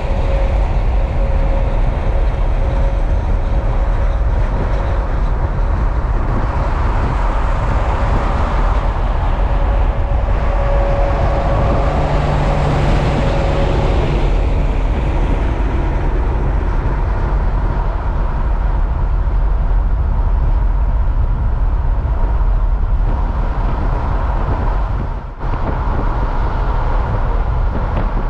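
Heavy trucks running past on a road: a loud, steady low rumble of engines and tyres, with a brief sharp dip about 25 seconds in.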